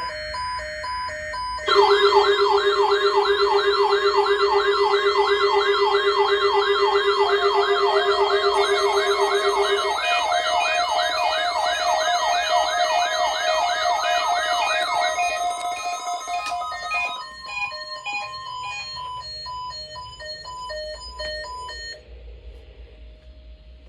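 Electronic alert sounds layered together: a siren sweeping quickly up and down, about three times a second, over steady and pulsing beeps. The siren starts abruptly and loudly about two seconds in and stops about fifteen seconds in. The pulsing beeps carry on and fade near the end.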